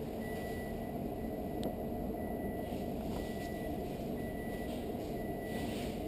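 A car's cabin warning chime beeping steadily, a short high beep about once a second, over a low steady background rumble.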